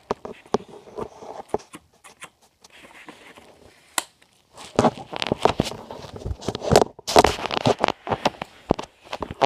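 Packaging being handled and torn open: crinkling, tearing and knocks, with scattered clicks at first and a busy, louder stretch of handling from about halfway in.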